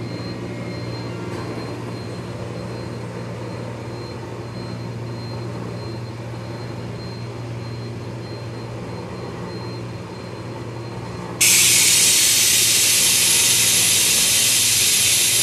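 Rubber dispersion kneader running with a steady low hum. About three-quarters of the way through, a loud steady hiss starts suddenly and keeps going.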